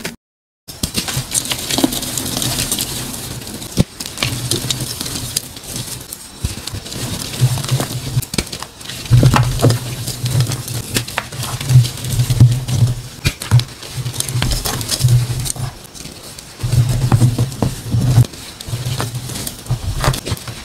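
Dyed gym chalk blocks crushed and crumbled by hand: dry powdery crunching with many sharp little cracks, beginning after a moment's silence. A low rumble comes and goes underneath from about four seconds in.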